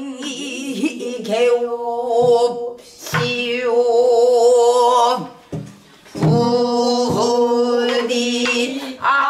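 Female pansori singer holding long, wavering notes in three sung phrases, with a few strokes on a buk barrel drum between them.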